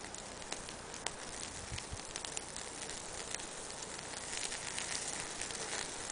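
Small wood fire crackling: scattered small pops and clicks over a steady hiss.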